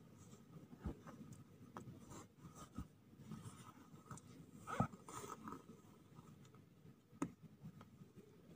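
Faint scratching and rustling as two-week-old kittens clamber over each other, their claws and paws catching on cloth and cardboard, with a few soft knocks; the loudest comes about five seconds in.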